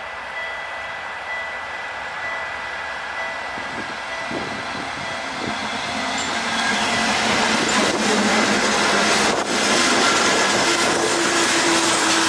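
GE C36-7i diesel locomotive, with its 16-cylinder engine running, approaching and passing at speed with a freight train of tank cars. The noise grows louder about halfway through as the locomotive goes by, then turns to the steady rolling of the tank car wheels on the rails.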